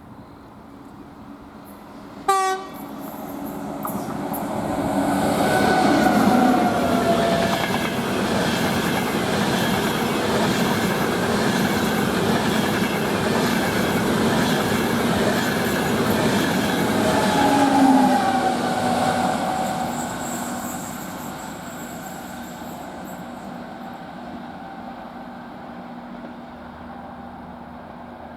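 A passing train: a short horn blast about two seconds in, then the train's running noise builds, stays loud for roughly fifteen seconds with falling tones as it goes by, and fades away.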